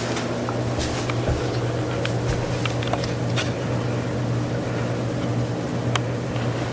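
Craftmade Max Air 29-inch ceiling fan running steadily: a low motor hum under the rush of air from its blades, with a few light ticks.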